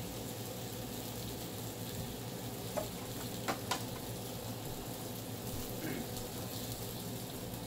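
Chicken thighs in barbecue sauce sizzling steadily on a Hamilton Beach electric indoor grill, with a few light clicks about three seconds in.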